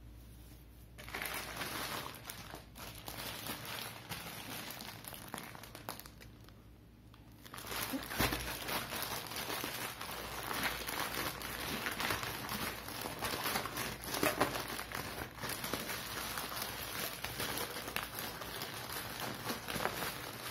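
Plastic courier bags crinkling and rustling as they are handled and unpacked, quieter for a moment around the middle.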